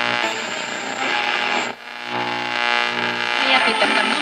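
AM push-button radio from a 1969–71 Dodge D100 truck playing an AM broadcast through its speaker, with a steady hum and a thin high whistle over it. Just under two seconds in the sound drops out briefly, then comes back as music with static.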